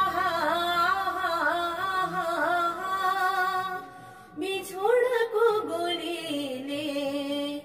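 A woman singing unaccompanied, drawing out long wavering held notes without clear words, in two phrases with a short breath between them about four seconds in.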